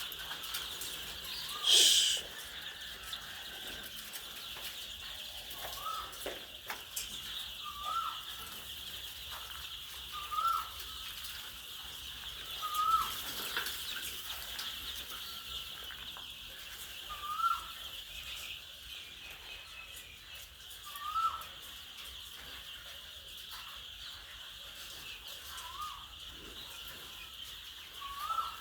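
Chickens on a poultry farm: a bird gives a short rising call every few seconds over a steady high-pitched background, with one loud, sudden burst of noise about two seconds in.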